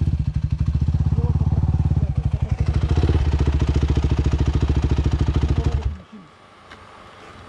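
Off-road dirt bike engine idling close by with a steady pulsing beat, picking up slightly a few seconds in, then stopping abruptly about six seconds in as it is shut off.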